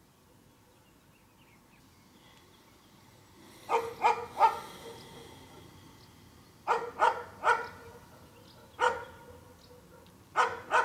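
A dog barking in short clusters: three quick barks about four seconds in, three more about three seconds later, a single bark, then two at the end.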